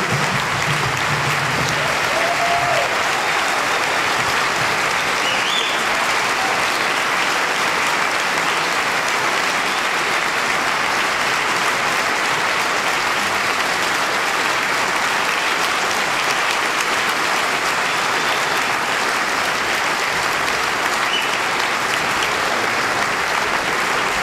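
Concert audience applauding steadily at the end of the piece, a dense even clapping that holds throughout.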